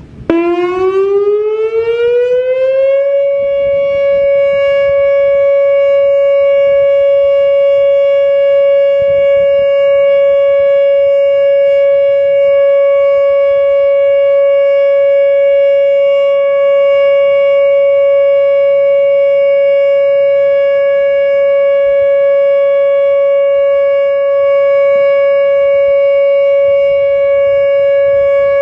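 Whelen WPS-2904 electronic outdoor warning siren sounding its test tone. The pitch rises over the first three seconds, then holds one steady, loud tone with strong overtones.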